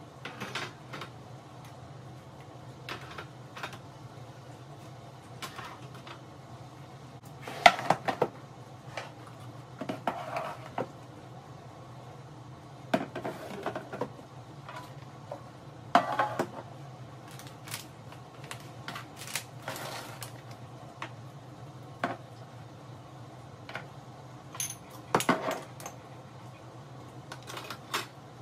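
Household items being set down and slid into place on a kitchen cabinet shelf: irregular knocks and clinks of plastic organiser boxes, glass jars and a tin, a few of them sharper, over a steady low hum.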